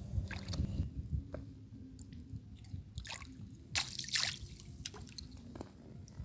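Shallow seawater with small splashes and drips, a few short sharp ones standing out around the middle.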